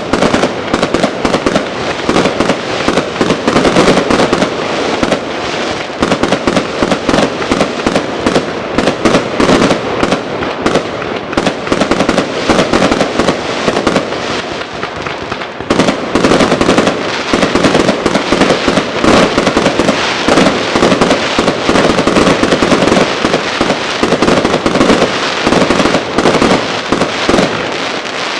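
New Year fireworks going off in a dense, continuous barrage of bangs and crackles, easing slightly about halfway through before picking up again.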